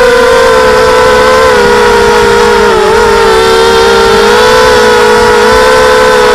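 Diatone mini quadcopter's motors and propellers whining in flight: a loud, steady pitched hum that wavers slightly with throttle, dipping briefly about three seconds in.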